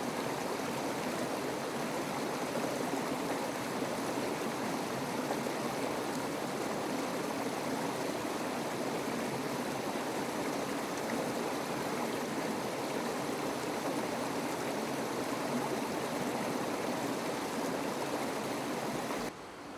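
A stream's water rushing steadily in a dense, even rush. Near the end it cuts off suddenly to a quieter hiss.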